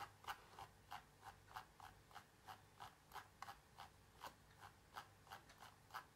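Faint, evenly paced clicking of a computer mouse's scroll wheel, about three clicks a second, as a document is scrolled down.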